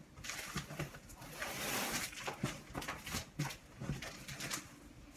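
Rustling, scraping and knocking of a cardboard shipping box being picked up and handled, with scattered clicks and a longer rustle about two seconds in.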